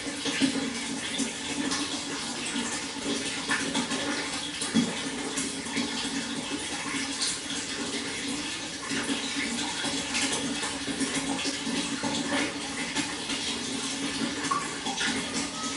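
Water flowing steadily, with many small splashes scattered through it.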